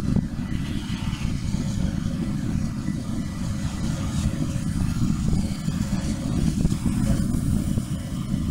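Heavy, uneven low rumble of wind buffeting the microphone, mixed with the distant diesel locomotives of an approaching freight train.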